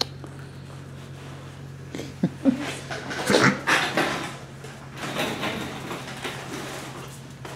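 Golden retriever puppies giving a few short whines and yips about two to four seconds in, over a steady low hum.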